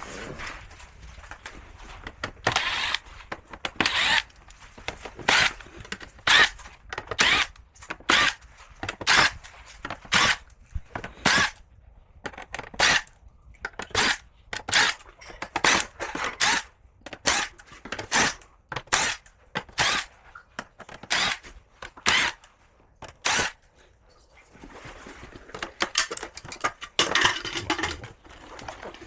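A tool working in short repeated bursts, roughly one a second, for about twenty seconds, followed near the end by a rougher, more continuous stretch.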